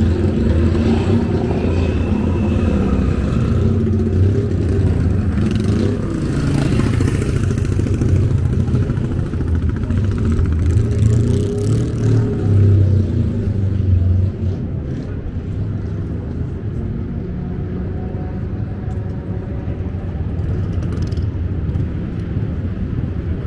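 Vintage motorcycle engines running with a steady low drone, a little quieter from about fourteen seconds in.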